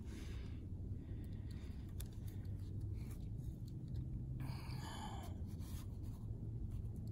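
Close rustling and scraping of camouflage clothing and fishing gear as a rod and a hooked catfish are handled. It runs over a steady low rumble, with a louder rustle about four and a half seconds in.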